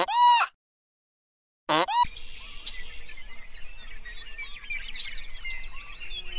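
Many small birds chirping and twittering over a steady outdoor background, starting about two seconds in. Before that comes a short pitched tone that swells and fades, a second of dead silence, and a brief second tone.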